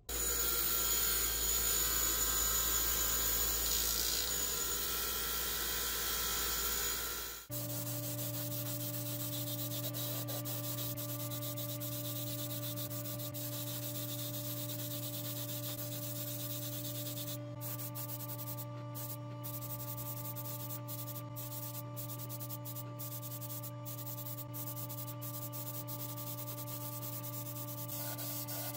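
Abrasive sanding on the rusty reel's parts: a loud, even scratching for the first few seconds. After a sudden cut, the sanding continues over a steady drone, like a small electric tool running at constant speed.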